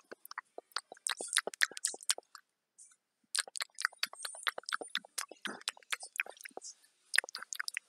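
Close-up crunching and chewing of pretzels in the mouth, many sharp dry crackles, with a pause of about a second partway through.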